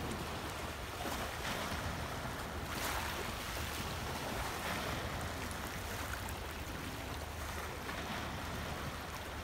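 Sea waves washing against rocks and breaking over a breakwater: a steady rush of surf with a few slightly louder surges.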